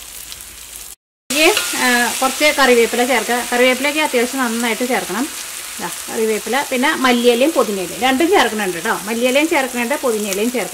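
Masala frying in a wok while a wooden spatula stirs and scrapes it: sizzling with a run of rising and falling squealing tones over it. The sound cuts out briefly about a second in.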